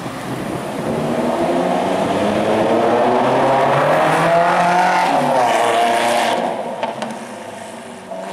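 Ferrari F430 Spider's V8 engine accelerating past. The engine note rises and swells to its loudest about halfway, then drops and fades as the car pulls away.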